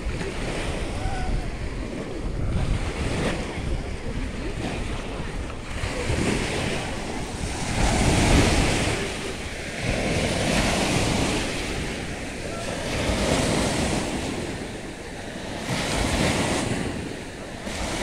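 Small sea waves breaking and washing onto a sandy shore, swelling and ebbing every two to three seconds, with wind buffeting the microphone.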